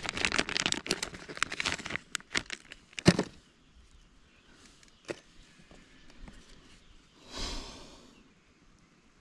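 Plastic crinkling and clicking as fishing tackle is rummaged through for a new lure, with one sharp snap about three seconds in, a lone click a couple of seconds later and a short rustling rush near the end.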